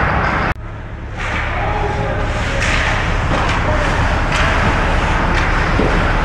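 Ice hockey game play in an arena: scattered sharp knocks of sticks and puck over a steady noisy background with faint voices.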